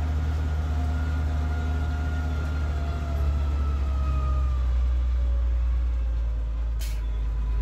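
Mercedes-Benz MB-trac 1300 tractor's six-cylinder turbo diesel, heard from inside the cab while driving: a deep, steady drone with a thinner, higher whine that slowly falls in pitch in the second half.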